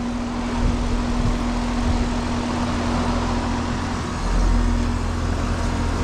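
2023 Goodman 3.5-ton central air conditioner condensing unit running steadily: the condenser fan's airflow with a constant hum from the compressor. It is cooling normally, the suction line cold.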